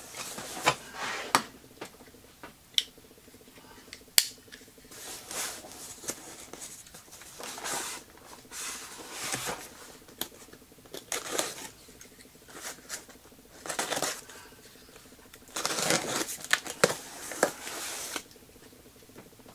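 Small cardboard box being handled and its packing tape slit open with a utility knife: irregular scraping and rustling of cardboard with a few sharp clicks, and a longer stretch of scraping near the end.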